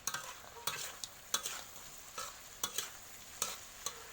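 A spatula scraping and knocking against a pan every half second or so while a frog stir-fry sizzles underneath.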